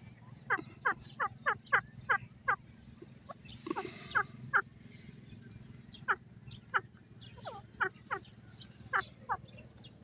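Grey francolin (teetar) giving a run of short, sharp calls, each note sweeping quickly downward, two or three a second, with a pause about five seconds in.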